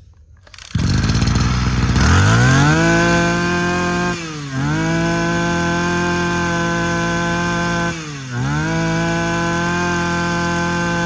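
Robin NB2510 25cc brush cutter's two-stroke engine starts about a second in and revs up to a high, steady speed. Twice the revs drop briefly and climb straight back.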